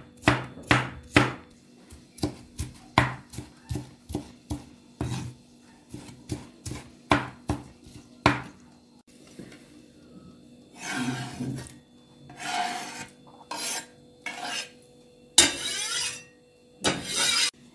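Chef's knife chopping tomato on a wooden cutting board, a quick, uneven run of sharp knocks for about eight seconds. After a short pause, the blade scrapes across the board in several longer strokes, pushing the chopped tomato off into a bowl.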